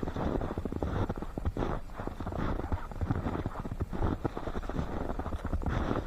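Footsteps crunching through fresh, deep snow at a walking pace, a dense run of irregular crunches.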